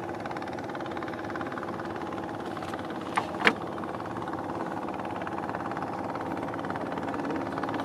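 Steady drone of a boat engine running, slowly growing a little louder, with two short sharp knocks about a third of a second apart some three seconds in.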